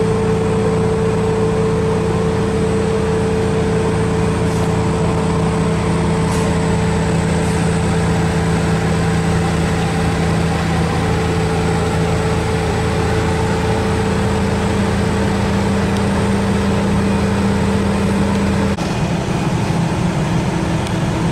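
Industrial machinery running steadily, a loud even hum with several fixed tones; about 19 seconds in the sound changes abruptly as some tones stop and another starts.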